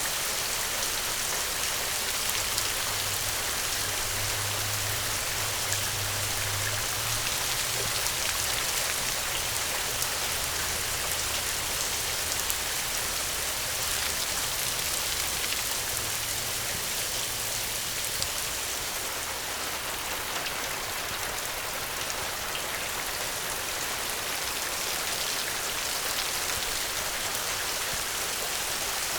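Steady rainfall: an even hiss of rain with the fine patter of individual drops landing on surfaces. A faint low hum sits under it for about the first half.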